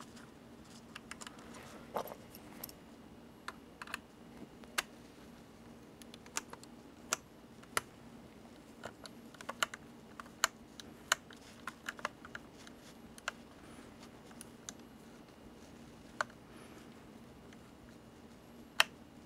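Small Phillips precision screwdriver clicking and tapping on a model locomotive's coupler screw as it is driven in, with handling of the model: scattered light, irregular clicks over a faint steady hum.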